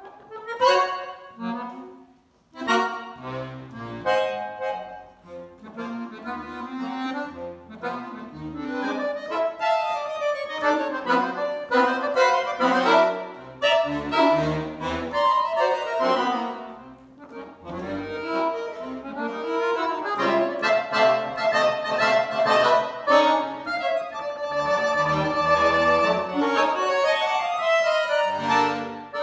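Two accordions playing a duet with quick runs and chords, with a short break about two seconds in.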